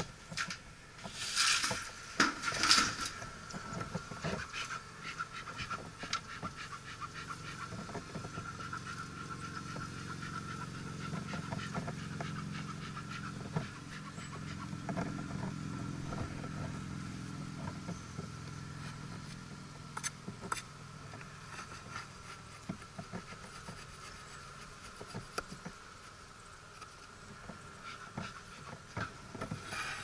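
Honeybees buzzing around a freshly opened hive, a steady low hum that is strongest in the middle. In the first few seconds there are several knocks and clatters from the wooden hive covers being handled.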